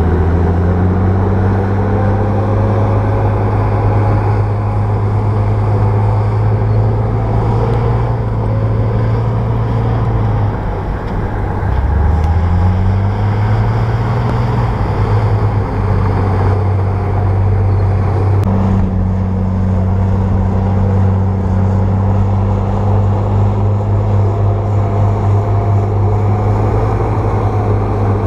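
Bulldozer's diesel engine running hard with a steady low drone; about ten seconds in the engine note dips and then rises again as it revs back up.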